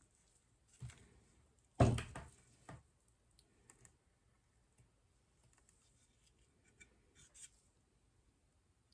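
Light knocks and clicks of a paint cup and stir stick being handled and the cup set down upside down on a canvas: a short cluster of taps about two seconds in is the loudest, followed by a few faint clicks.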